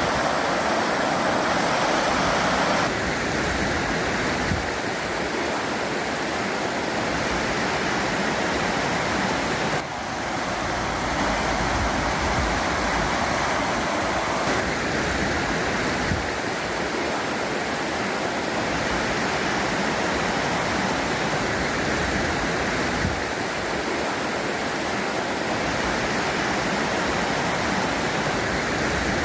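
Steady rushing noise with no tones in it, changing in tone at a few abrupt steps through the stretch.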